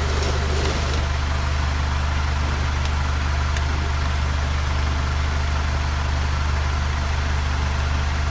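2011 Scion tC's 2.5-litre four-cylinder engine idling steadily in park, heard from beneath the car.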